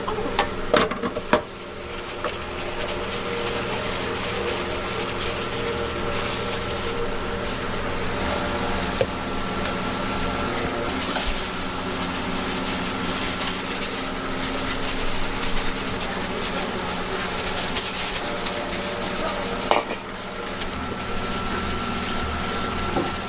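Food sizzling as it fries on a hot pan or griddle, a steady hiss, with a few sharp utensil clicks and knocks about a second in and again near the end.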